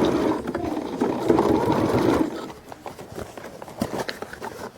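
Home (non-industrial) sewing machine stitching at a rapid, steady pace, stopping about two seconds in. A few light clicks and handling noises follow.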